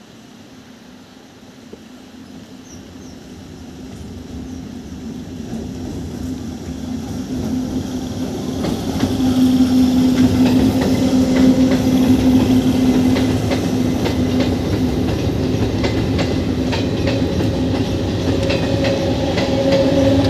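Passenger train hauled by an electric locomotive, approaching and then running past close by on a river bridge. The rumble builds for about nine seconds, then holds steady with the clickety-clack of coach wheels over rail joints and a steady low hum.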